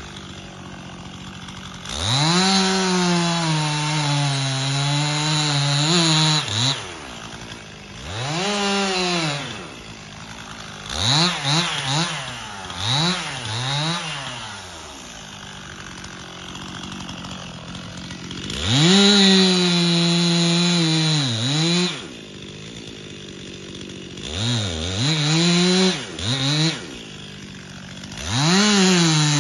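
Two-stroke petrol chainsaw cutting into the trunk of a cherry tree: the engine is opened to full throttle and held there for a few seconds at a time, dropping back to idle in between, with runs of quick throttle blips.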